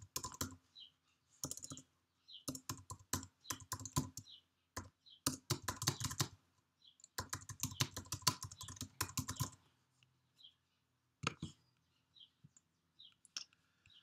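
Typing on a computer keyboard in quick runs of keystrokes, which stop about two-thirds of the way through, followed by a few separate clicks near the end.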